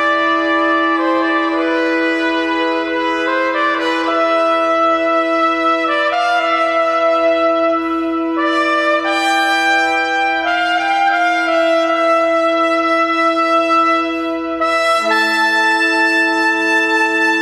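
Trumpet and pipe organ playing slow sacred concert music: a long held low note under a moving melody, with the low harmony changing about fifteen seconds in.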